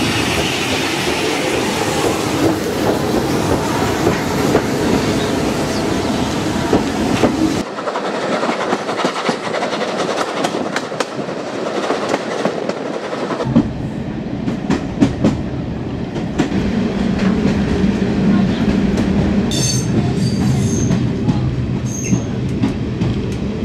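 Steam train running: Bulleid Pacific steam locomotive 34053 working past with its train, then the rumble of the carriages and the clickety-clack of wheels over the rail joints heard from on board. A few short high-pitched squeaks come near the end.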